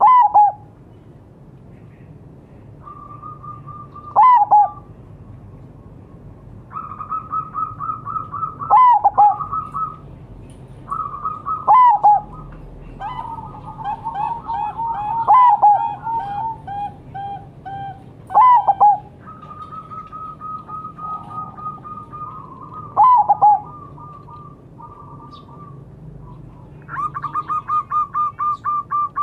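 Zebra doves (perkutut) cooing: runs of rapid, evenly pulsed coos, with a loud short downward-sweeping note about every three to four seconds. Around the middle, two runs at different pitches overlap, like birds answering each other.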